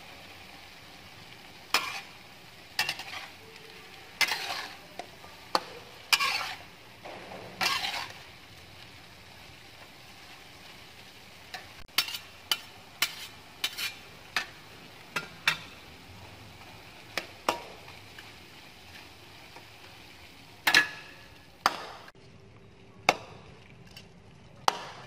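Black spatula stirring and scraping a metal wok of frying cauliflower and meat, with sharp knocks and scrapes in bursts over a steady sizzle.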